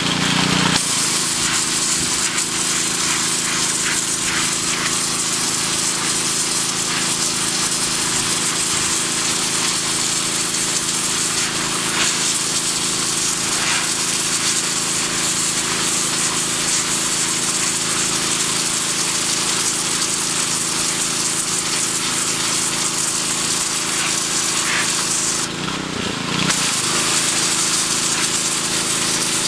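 High-pressure washer jet hissing steadily as it blasts algae and grime off a crinoid limestone slab, with a steady hum from the machine underneath. The spray briefly falters about 26 seconds in, then carries on.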